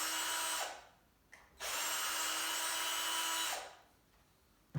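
Electric screwdriver running in two steady bursts of motor whine while backing out the screws that hold a shotgun's rubber recoil pad: one burst ends shortly after the start, the other runs for about two seconds in the middle.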